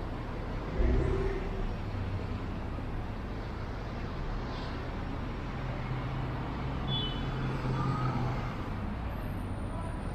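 City street traffic, with motor vehicles running past. There is a sudden low thump about a second in, and a low engine drone from about five and a half to eight and a half seconds in.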